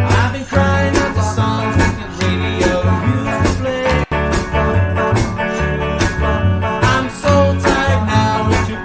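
A band playing an upbeat blues-country song: plucked guitars over a steady bass line and beat, with a split-second dropout about four seconds in.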